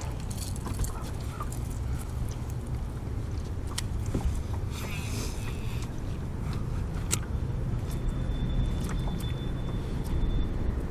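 Steady low rumble of background noise aboard a fishing boat on a river, with scattered small clicks and, near the end, a faint thin high tone held for about three seconds.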